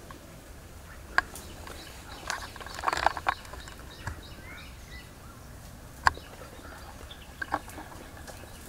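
Scattered sharp snaps and crackles of twigs and leafy brush, with a denser burst of rustling about three seconds in and loud single snaps about one and six seconds in. A faint short bird call is heard near the middle.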